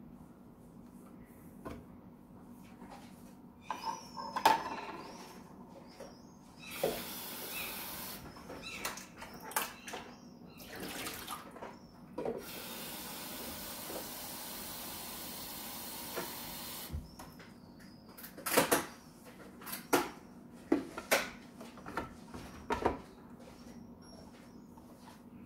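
Water running from a tap into the plastic water tank of a Dolce Gusto Genio S capsule coffee machine, first briefly and then steadily for about four seconds. Sharp plastic clicks and knocks follow as the tank is handled and fitted back onto the machine.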